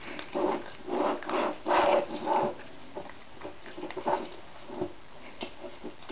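Two cats eating from a plastic anti-gulp slow-feeder bowl, scooping food from between its pegs with their paws. Irregular chewing and clatter in the bowl, busiest in the first couple of seconds, then sparser clicks.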